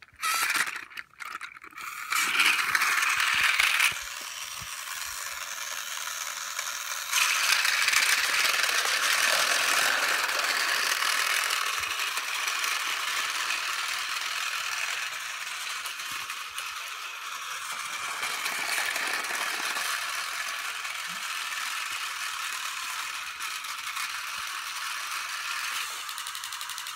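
Battery-powered Tomy Plarail toy trains running on plastic track: the small motors and gears keep up a steady whirring rattle that grows and fades a few times.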